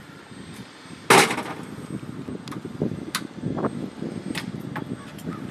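GAU-21 .50-caliber machine gun being worked by hand: one loud, sharp metallic clack about a second in, followed by several lighter clicks of the weapon's mechanism.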